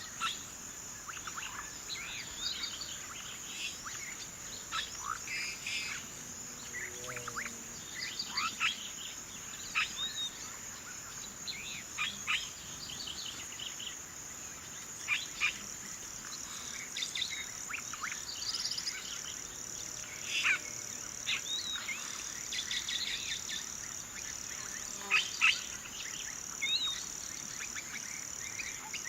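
Several birds chirping and calling in short, scattered notes over a steady, high-pitched insect drone.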